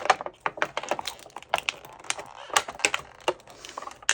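Toy packaging being pried open and handled: rapid, irregular clicks and crackles, several a second, with a brief rustle about halfway through.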